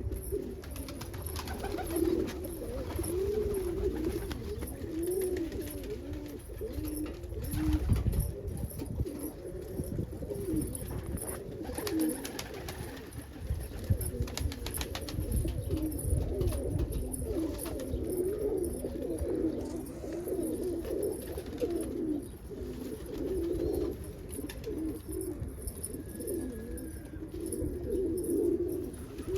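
Domestic pigeons cooing continuously, several birds overlapping.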